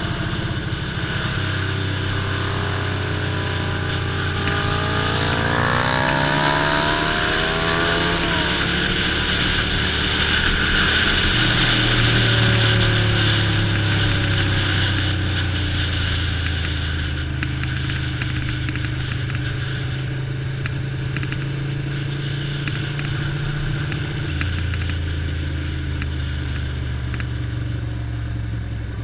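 1988 Ducati Paso 750's V-twin engine running at a steady cruise, with wind rushing over the helmet-mounted microphone. The engine note climbs for a few seconds, then changes pitch in steps a few times. The wind hiss is strongest in the middle stretch.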